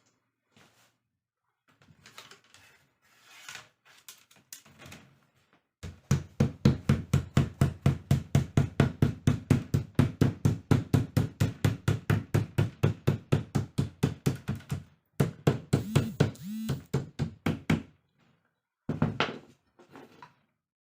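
Rapid, even knocking on the chair, about five strokes a second for roughly nine seconds. It sounds like light hammer taps during the rattan repair, with a few scattered knocks before and after.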